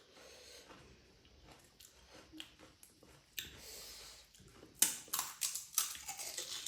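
Pani puri being eaten: chewing, with the crisp puri shells crunching in a quick run of sharp cracks about five seconds in, after a breathy hiss.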